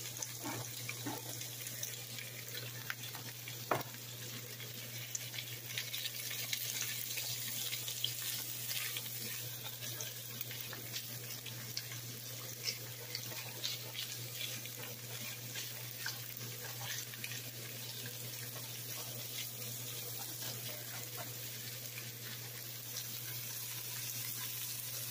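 Chopped ham, salami and pepperoni sizzling in a frying pan: a steady hiss with small scattered crackles over a low steady hum.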